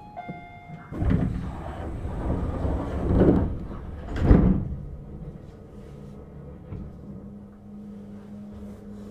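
Short door chime on a Tobu Tojo Line commuter train. Then the carriage's sliding doors run shut over a few seconds and close with a heavy thump about four seconds in, leaving a steady low hum from the stopped train.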